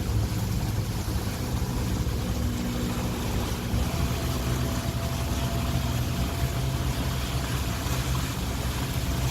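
Regal 28 Express motor cruiser's engine running steadily below planing speed: a low, even hum under a steady hiss of water and wind.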